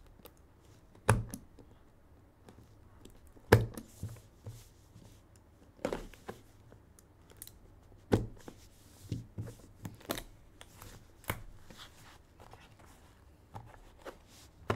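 A box cutter slitting the tape seal on a trading-card box, with several sharp clicks and knocks as the box is handled and its lid opened.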